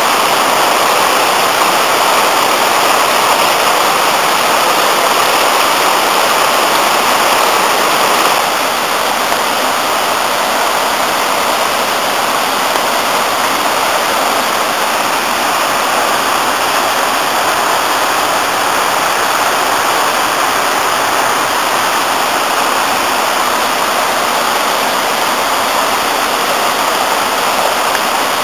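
River in spate after heavy rain, rushing steadily over white-water rapids and a small rocky cascade; it drops slightly in loudness about eight seconds in.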